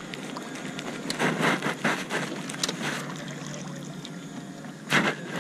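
Irregular knocks and rattles as a Johnson outboard motor is handled by its cowling and tiller on a jon boat, with a louder sharp knock about five seconds in.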